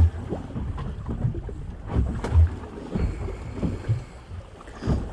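Wind buffeting the microphone over a choppy sea, with irregular low thumps of waves slapping a small boat's hull. The strongest thumps come right at the start and about two and a half seconds in.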